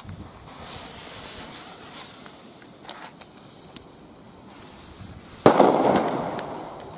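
Blackbox Vaporizer firecracker going off: one loud bang about five and a half seconds in, with an echo that fades away. Before it, a faint hiss.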